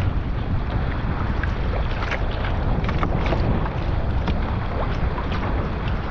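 Moderate wind buffeting the microphone, a steady low rumble, over scattered small splashes and slaps of water around a sea kayak on open sea.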